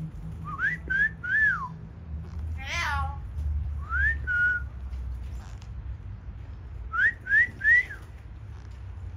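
Hill myna whistling: groups of three short rising whistles near the start and again near the end, a rising whistle that levels off in the middle, and one falling call about three seconds in.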